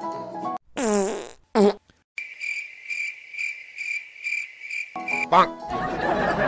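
Prank fart noises: a long wet fart falling in pitch, then a short second one, followed by about three seconds of cricket-chirp sound effect repeating about three times a second. Near the end, laughter and chatter come in over music.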